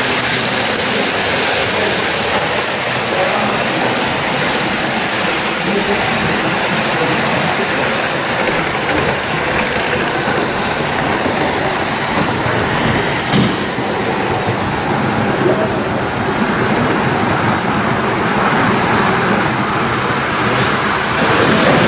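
Gauge 1 live steam model locomotive running along the track, a steady noisy rush with no clear beat, and a single knock about thirteen seconds in.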